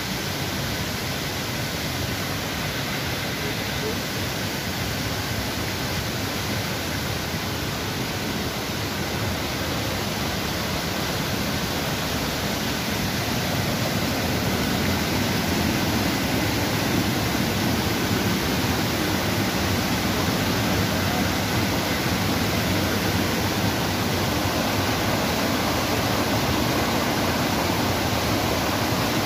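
Rushing water of a swollen, muddy forest stream tumbling over rocks: a steady rushing noise that grows louder a little before halfway through and then holds.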